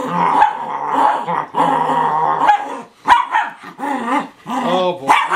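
Schnauzer growling and barking while play-fighting with a man. Long, drawn-out growls come first, then shorter, sharper barks from about three seconds in.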